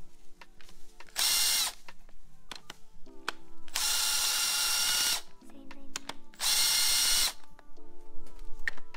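Cordless power driver with a socket running in three short bursts, about a second in, for about a second and a half around four seconds in, and again near seven seconds in, each a high whine as it spins out bolts in the bottom end of a Honda B18C block beside the crankshaft. Background music plays softly between the bursts.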